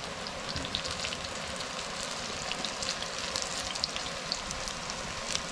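Gram-flour pakoras deep-frying in hot oil in an aluminium pan, just dropped in: a steady sizzle with many small crackling pops.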